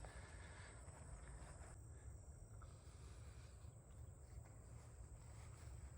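Near silence: faint outdoor ambience with a steady high-pitched insect drone, typical of crickets, over a faint low rumble.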